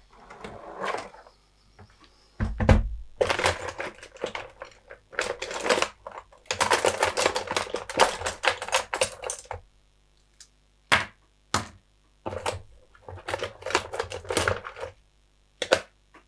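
Test leads and clip connectors being rummaged through and handled: two long spells of dense plastic-and-metal clattering, with a heavier thump near the start, then scattered single clicks.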